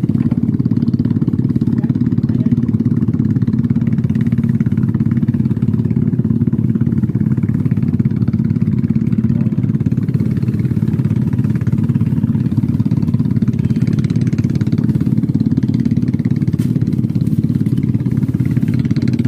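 An engine running steadily with a constant low drone, holding the same pitch and level throughout.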